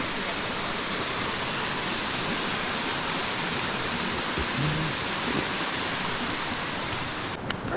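Waterfall rushing in a steady, dense roar of falling water, running full after a wet day at a fall that is usually dry. The rush drops away abruptly near the end.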